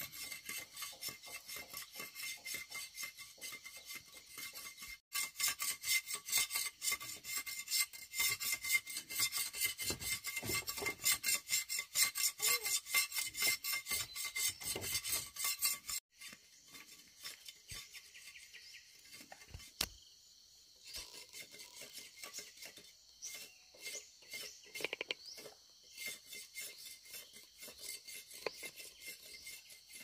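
Knife scraping the rind off sugarcane stalks in quick, repeated rasping strokes, louder after about five seconds. About halfway through the strokes become fainter and sparser.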